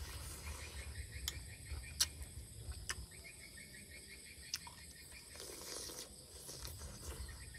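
A metal spoon clinking sharply against a plate a few times during eating, over a faint pulsing chirp of insects in the night.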